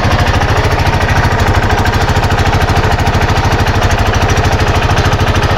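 Arctic Cat Prowler 500 side-by-side engine running steadily, with a rapid, even pulsing from an exhaust leak that makes it super loud.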